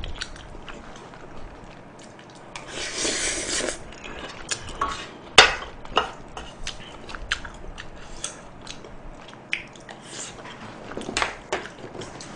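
Wooden spoon scraping and knocking against a shallow metal pan while the last of the sauce-coated noodles is scooped up, mixed with chewing and mouth sounds. A sharp knock of the spoon on the pan about five seconds in is the loudest sound.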